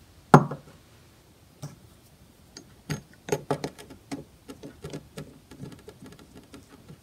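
A sharp knock of a small glass bottle being set down on a wooden table, then scattered small clicks. From about three seconds in a quick run of plastic clicks and scrapes follows as a spray-pump top is screwed onto a glass bottle.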